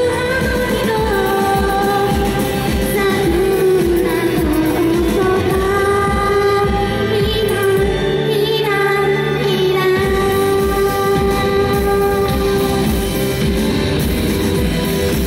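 A woman sings a pop song live into a handheld microphone over backing music, holding long notes. Near the end she lowers the microphone and the backing music carries on alone.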